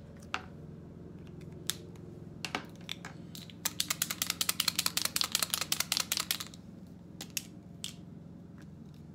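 Oil-based Sharpie paint marker being shaken, the mixing ball inside the barrel rattling rapidly, about ten clicks a second for nearly three seconds, which mixes the paint before use. A few single clicks come before and after the rattle.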